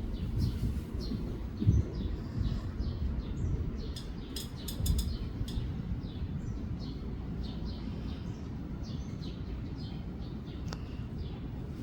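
Small bird chirping over and over in short, falling chirps, which the recorder takes for a sparrow, over strong gusty wind rumbling on the microphone, with gusts about two and five seconds in.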